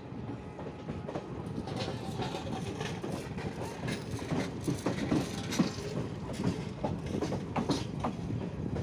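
Moving passenger train heard from an open coach doorway: wheels clicking and clattering over the rails over a steady rolling rumble.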